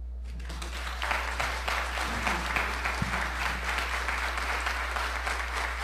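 Congregation applauding, the clapping swelling over the first second and then holding steady. A low electrical hum runs underneath.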